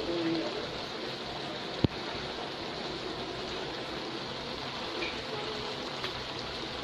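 Pan of cassava leaves simmering in its cooking liquid: a steady bubbling hiss, with one sharp click about two seconds in.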